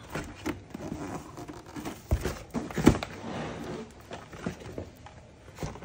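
Boxed toys being shuffled and lifted out of a large cardboard shipping box: cardboard rustling, with a few dull knocks of boxes against cardboard, the loudest about three seconds in.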